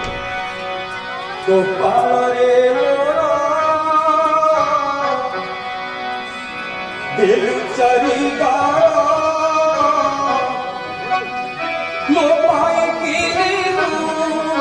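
Devotional kirtan music: a singer's long, wavering sung phrases over steady instrumental accompaniment with drum. New phrases start about a second and a half in, again around seven seconds, and again near twelve seconds.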